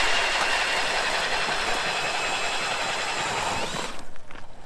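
A handheld power drill turning an ice auger, boring a hole through lake ice: a steady motor whine over rough grinding. The drill stops about four seconds in.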